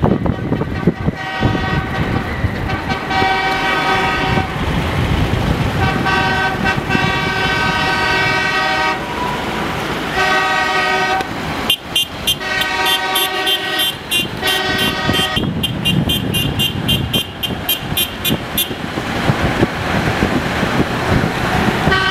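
Vehicle horns honking in a series of long blasts, over the steady rumble and wind of a moving road vehicle. From about halfway, a rapid high ticking of about four a second joins in.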